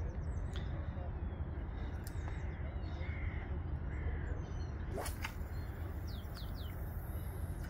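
A crow cawing twice, about three and four seconds in, over a steady low rumble. A sharp click comes about five seconds in, and a small bird gives a few brief high chirps soon after.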